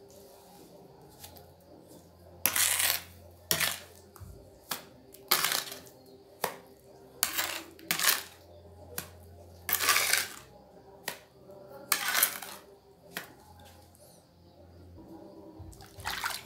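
Steel trowel working wet cement mortar: about a dozen strokes, roughly one a second, each a short scrape or slap, with a few longer scrapes of about half a second, as mortar is scooped from the tray and spread onto a pot form.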